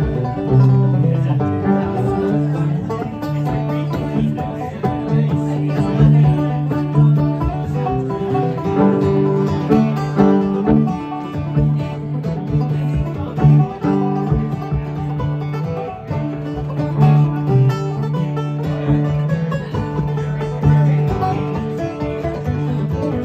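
Bluegrass music with banjo and guitar playing.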